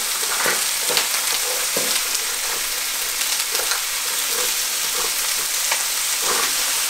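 Soybean sprouts and seafood sizzling in an electric griddle pan as they are tossed with two wooden spatulas: a steady frying hiss with light scattered clicks and scrapes of the spatulas.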